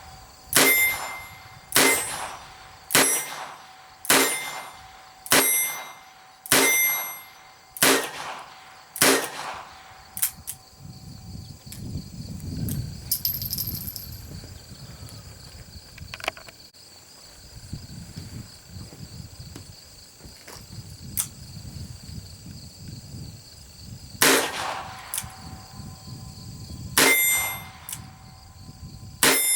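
Ruger GP100 .22 LR revolver firing Winchester Wildcat rounds: about nine sharp shots roughly a second apart, then a pause of about fourteen seconds, then three more shots spaced two to three seconds apart near the end.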